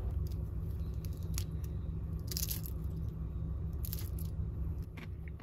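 Brittle caramelized sugar crust of a catalana crackling as a plastic spoon breaks into it: a few sharp crackles, the loudest about two and a half and four seconds in, over a steady low hum.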